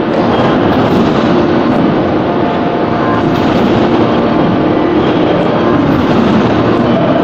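1600-ton hydraulic forging press and forging manipulator working a red-hot billet: a loud, steady machinery drone with faint humming tones running through it and no distinct blows.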